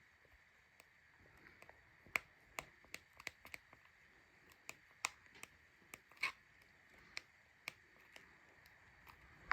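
Faint, sharp clicks of buttons being pressed on a small remote control for a colour-changing LED light bulb, coming irregularly, sometimes in quick pairs.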